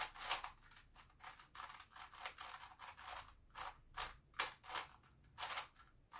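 Grilles II puzzle cube being turned by hand: irregular plastic clicks and clacks, a few a second, as its layers are twisted, with the loudest clack about four and a half seconds in.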